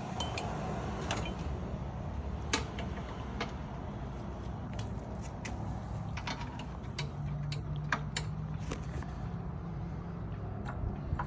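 Irregular light clicks and knocks of hand tools and metal parts being handled while working on a lawn edger's blade adjustment, over a steady low rumble.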